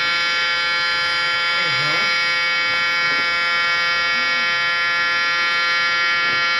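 Outdoor tornado warning siren sounding one steady, buzzy tone at constant pitch, with faint voices underneath.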